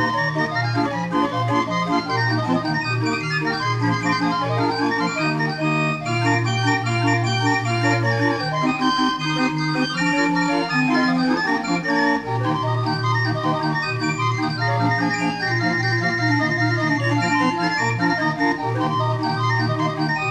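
Barrel organ playing a tune: a quick melody over held bass notes that change every second or two.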